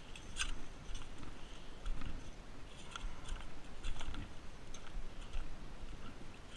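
Irregular crunching and scraping of stones and gravelly sand, several short crunches a second with a few dull thuds underneath.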